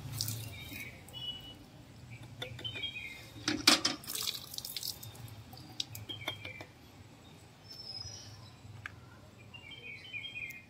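Liquid pouring and sloshing in a plastic 2-litre hand pump sprayer as insecticide solution is mixed in it, with a few knocks of the plastic, the loudest about four seconds in.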